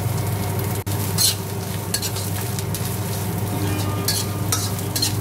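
A metal spatula stirring and scraping food in a wok over a steady sizzle, with several sharp scrapes of the spatula against the pan.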